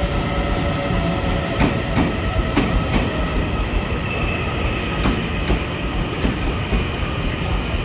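Electric trains standing at a station platform, with an EMU900 electric multiple unit alongside. A steady low rumble carries a steady high whine, with light clicks about every half second.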